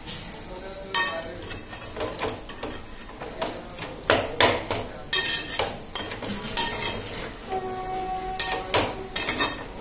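A metal spatula scraping and knocking against a metal pot as potato fry is stirred and turned, with irregular clanks, some of which ring briefly.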